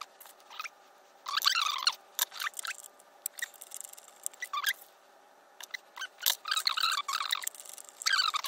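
Short squeaks and light clicks from hand tools and small parts being worked while wiring a fuse box: a burst of squeaking about a second in, a longer one near seven seconds, and another at the end.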